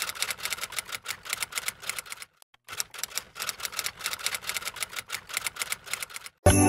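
Typing sound effect: a quick run of keystroke clicks that accompanies text typing itself out on screen. It pauses briefly a little over two seconds in, then goes on and stops just before the end.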